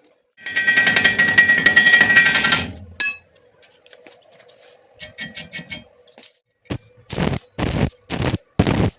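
Stick welding work: about two seconds of crackling arc, then a single metallic ring, a quick run of clicks, and from about two seconds before the end a series of regular short strokes, two or three a second.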